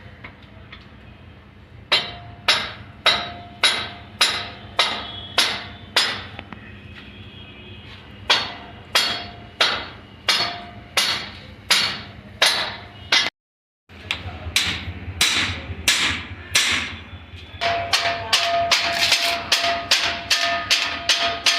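Repeated hammer blows on metal, some ringing briefly, as new brake blocks are driven into place on a railway coach's brake gear. The strikes come at a steady pace of about two a second, then come faster near the end.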